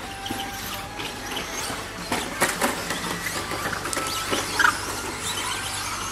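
Radio-controlled 2WD short-course trucks racing on a dirt track: electric motors whine, and hard plastic clacks and knocks come as trucks land and hit each other. The clacks bunch together a little after two seconds, with one sharp knock about four and a half seconds in.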